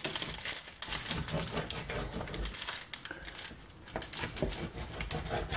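Knife sawing back and forth through a crisp baked cheese crust on baking paper: a run of irregular crunching and crackling strokes. The crust is tough and hard to cut through.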